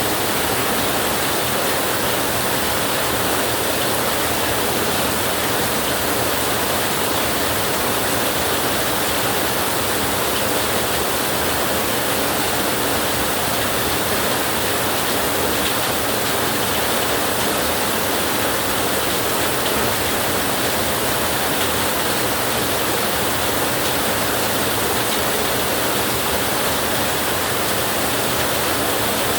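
Heavy rain falling on a tin roof, a steady, even hiss.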